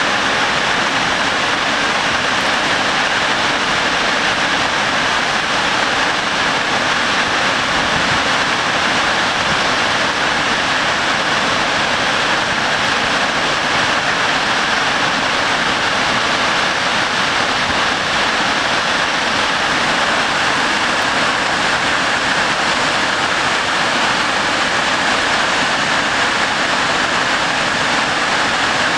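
Snoqualmie Falls, a large waterfall, sending down a heavy curtain of water: a loud, steady, unbroken rush of water noise.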